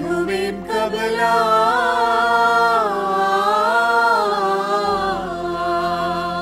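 Mixed choir of men and women singing a Syriac liturgical hymn of the East Syriac office of the dead, chant-like and unaccompanied. A new phrase starts right at the beginning, its melody winding up and down in long held, ornamented notes, easing off a little near the end.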